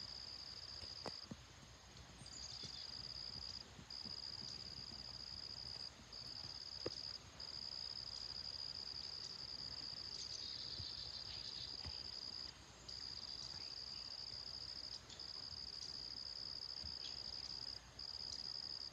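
Insects buzzing in a steady high-pitched chorus that drops out for a moment every few seconds, with a faint click about seven seconds in.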